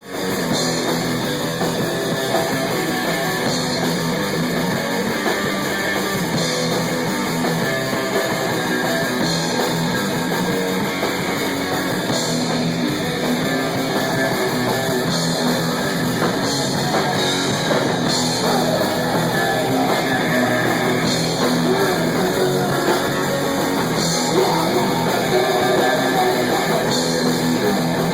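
Rock band rehearsing a song, with guitar and drums at a steady, loud level.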